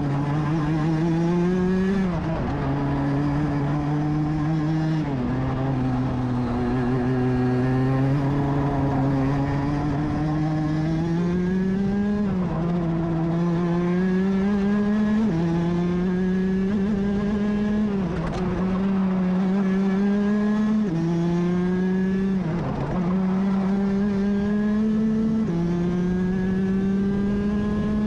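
Onboard sound of a Rotax DD2 125cc two-stroke kart engine at racing speed. Its note climbs steadily under acceleration and drops sharply several times where it lifts off or shifts for corners.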